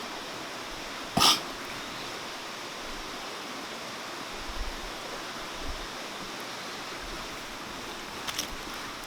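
Mountain stream flowing steadily, with one sharp loud crack or knock about a second in and a few faint clicks near the end.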